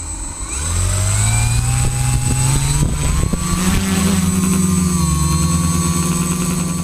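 Quadcopter's electric motors and propellers spinning up, rising in pitch over the first few seconds as it lifts off, then running at a steady pitch. Heard from the camera mounted on the craft itself.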